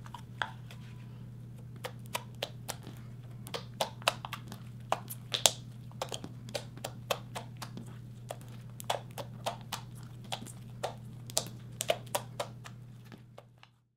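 Glossy slime being poked, folded and pressed by fingertips, giving irregular sticky clicks and pops several times a second, over a low steady hum. It fades out near the end.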